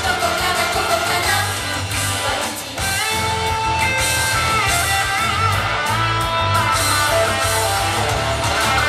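Live pop-rock idol song with prominent electric guitar, with a brief drop in level about three seconds in.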